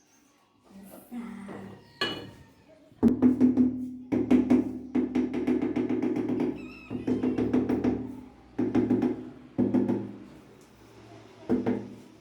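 Music: a pitched instrument playing phrases with percussion, starting loudly about three seconds in and broken by short pauses.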